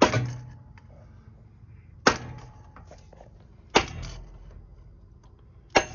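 Hammer blows on metal, pounding a part out of a Sears garden tractor's rear axle assembly. Four sharp strikes come about two seconds apart, each ringing briefly.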